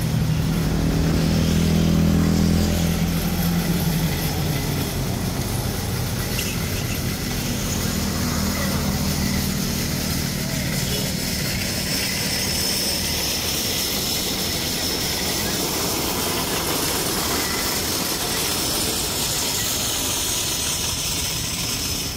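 A motor engine runs and fades away over roughly the first ten seconds, leaving a steady high hiss.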